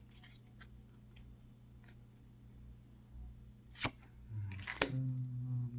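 Trading cards being handled: a few faint sharp clicks and snaps of card stock, with a stronger click near the middle. A low, wordless murmur of a man's voice comes in near the end.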